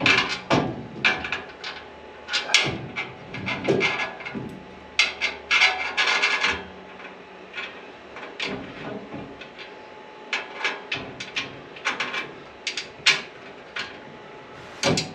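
Irregular clicks, knocks and scraping of a truck bed rack's crossbar being handled and fitted onto its uprights, the knocks clustered most thickly in the first half.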